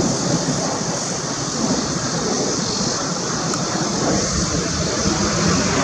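Mirage 2000-5 fighter jet's single SNECMA M53 turbofan heard from the ground as a steady rushing roar while the jet manoeuvres overhead, growing slightly louder near the end.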